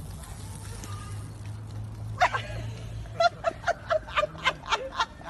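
A person laughing hard in quick, high-pitched bursts, about four a second, beginning about two seconds in; before that only a low steady hum.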